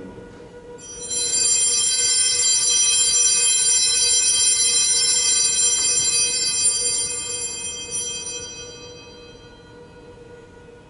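Altar bells rung at the elevation of the chalice during the consecration: a cluster of small bells shaken steadily for about seven seconds, then left to ring out and fade away.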